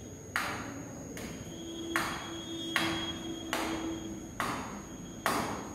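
Marker pen writing on a whiteboard: about six short scratchy strokes, each starting sharply and trailing off, with a faint steady squeak-like tone under the middle strokes.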